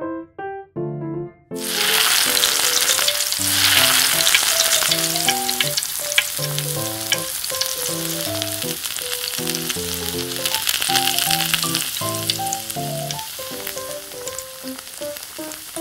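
Battered fish pieces deep-frying in hot oil in a miniature steel wok. A sizzle full of small crackles starts suddenly about a second and a half in as the fish goes into the oil, and is loudest a couple of seconds later.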